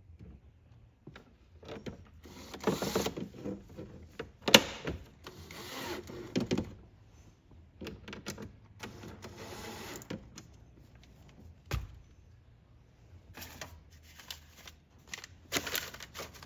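Plastic interior trim panel of a 1995 Jeep Grand Cherokee ZJ being worked back into place by hand: irregular rubbing and scraping with scattered clicks and knocks, a sharp snap about four and a half seconds in and a dull thump near twelve seconds in.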